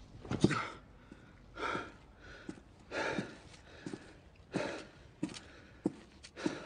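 A man's heavy, pained breathing: a string of short gasping breaths, roughly one a second, the first the loudest.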